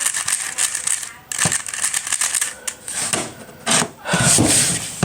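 New speed cube being turned quickly by hand: a rapid, uneven run of plastic clicks and clacks as its layers snap round.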